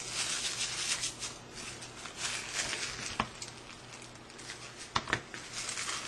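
Thin pattern tissue paper rustling and crinkling as it is scrunched by hand, with a few sharp scissor snips in the second half, two close together near the end.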